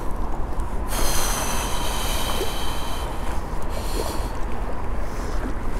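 Steady rushing noise of wind and water. A high whirring buzz starts about a second in and lasts about two seconds, and a shorter one comes around four seconds in.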